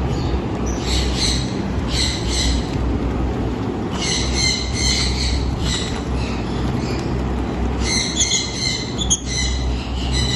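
Small birds chattering in shrill, high-pitched bursts, three spells of rapid chirping, over a steady low rumble.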